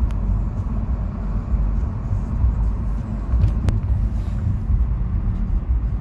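Steady low rumble of road and engine noise inside a moving car's cabin, with a single brief click a little past halfway.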